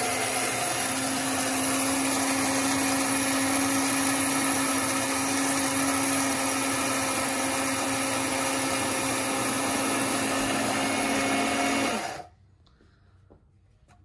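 Master Chef Elite electric blade coffee grinder running, its stainless steel blade grinding whole coffee beans with a steady motor hum and a rattling whir. It stops about two seconds before the end.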